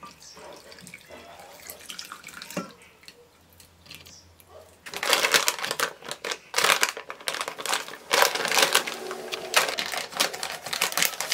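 Beetroot water pouring from a frying pan into a glass bowl, then, about five seconds in, a plastic bag of chia seeds crinkling loudly in the hands, a dense crackle that goes on to the end.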